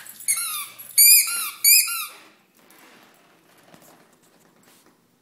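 A dog's oversized squeaky tennis ball squeaking three times in quick succession, each squeak a short note falling in pitch. Only faint shuffling is left after the squeaks.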